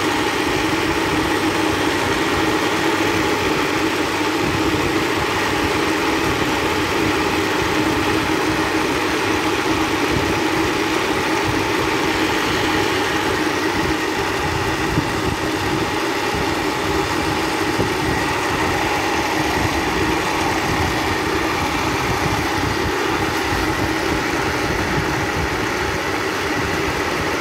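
Personal bullet-style blender running steadily at full speed, its motor whirring loudly as it purées cooked vegetables and rice into a smooth liquid baby food.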